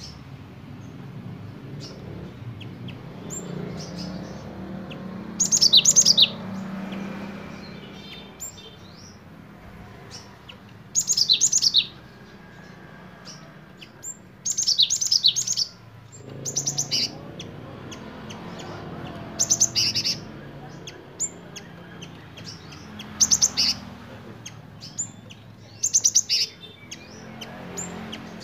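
Cinereous tit (gelatik batu) singing in sharp bursts of rapid, high repeated notes, about eight short phrases a few seconds apart. Its song is trained to carry imitated phrases of the bar-winged prinia (ciblek) and a nuthatch (rambatan).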